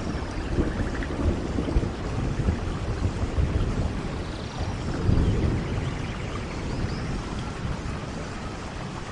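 Steady rain with rolling thunder; the thunder rumble swells about five seconds in.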